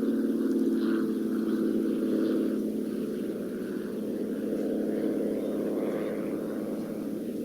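Piston engines and propellers of a CAP 232 and an Extra 300 aerobatic aircraft, making a steady drone during an aerobatic display.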